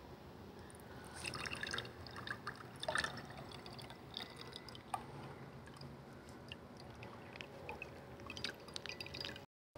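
Faint dribbling and dripping of marinade juice squeezed from a plastic chicken package into a glass, in short spells with small crackles of the bag.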